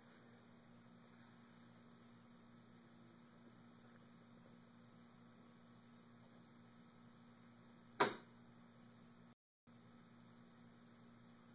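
Near silence with a faint steady electrical hum, broken once about eight seconds in by a single short sound, and a moment of complete silence just after.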